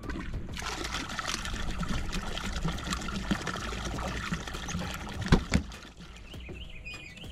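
Water trickling and splashing, then two sharp knocks a little after five seconds in, the loudest sound.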